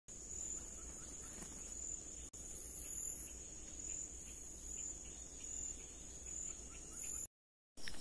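Insects in forest undergrowth making a steady, high-pitched continuous drone, with a second higher buzz that comes and goes. Faint short chirps repeat about twice a second in the middle.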